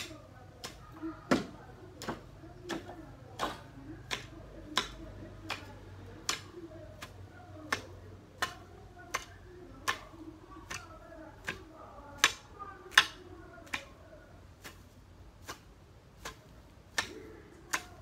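A long-handled garden tool striking the ground over and over in a steady rhythm, about three sharp chops every two seconds.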